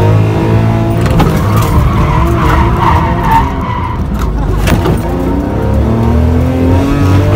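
Front-wheel-drive Suzuki Alto kei car's engine revving up and down, heard from inside the cabin, with tyres squealing in a drift slide from about a second and a half in to about four seconds in.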